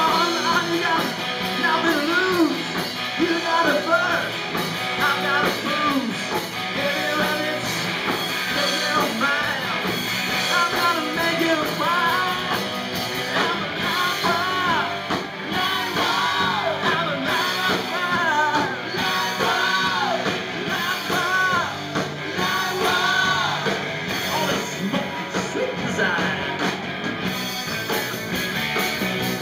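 Live rock band playing, a singer's voice over amplified electric guitars.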